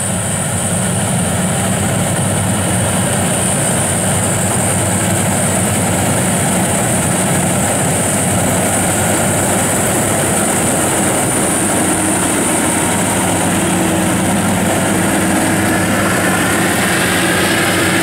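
FMWorld WD102Pro rice combine harvester running while it cuts standing rice: a steady engine drone with a constant high whine over it, and a second whine rising near the end.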